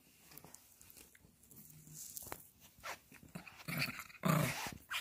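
Small dog growling in play while tugging on a plush toy, with two louder outbursts near the end.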